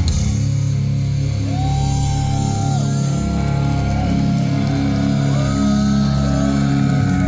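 Live rock band music with guitars, playing an instrumental passage: a lead line of long held notes that slide in pitch over a steady low bass.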